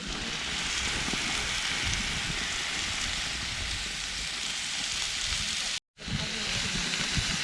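Barbecue chicken, hot dogs and hamburgers sizzling on a grill, a steady crackling hiss. It cuts out for a moment almost six seconds in, then carries on.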